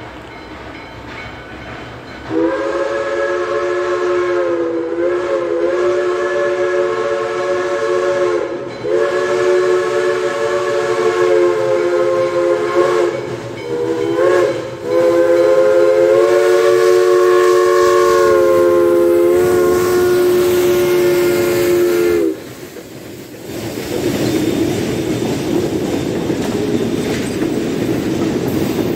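Pennsylvania Railroad three-chime steam whistle on Western Maryland Scenic Railroad's 2-6-6-2 steam locomotive No. 1309, sounding a chord of several notes in long, long, short, long blasts: the grade-crossing signal. The whistle then stops, and the locomotive and passenger coaches roll past with a steady rumble and wheel clatter.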